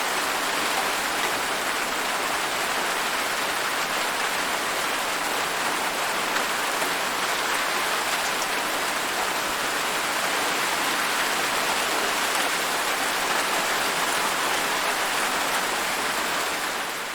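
Steady rain falling, an even hiss with no pauses, beginning to fade out near the end.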